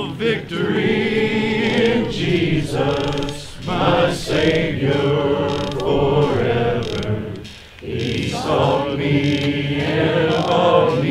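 Congregation singing a hymn together, held notes in phrases with short breaks between them.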